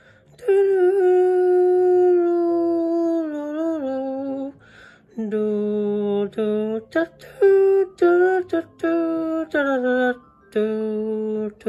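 A voice singing a slow wordless tune in long held notes that step and slide downward, with a run of short notes midway and brief pauses between phrases.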